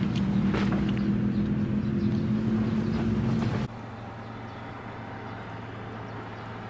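Steady low motor hum, like an idling engine, that drops abruptly to a quieter, steadier hum a little over halfway through.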